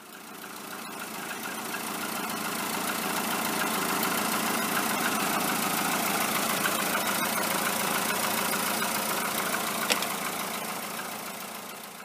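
A motor running steadily. It fades in over the first couple of seconds and eases off near the end.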